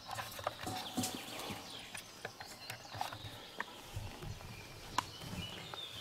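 Footsteps on a grassy forest track, soft thumps with scattered clicks and knocks, while small birds chirp.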